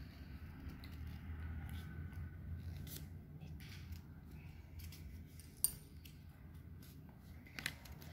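Faint crinkling and clicks of red craft paper being folded and pressed by hand over a low steady hum, with a sharp tick about five and a half seconds in and two more near the end.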